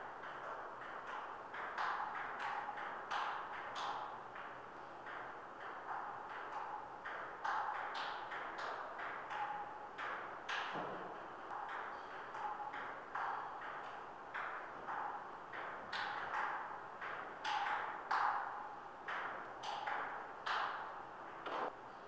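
Table tennis ball being hit back and forth, sharp clicks of the ball off the paddles and the table in quick runs with short pauses between rallies. Many of the clicks carry a brief ring.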